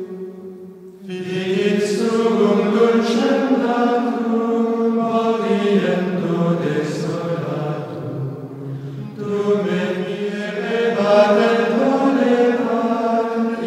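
Chanted vocal music: voices singing long held notes in phrases, with short breaks about a second in and around eight seconds.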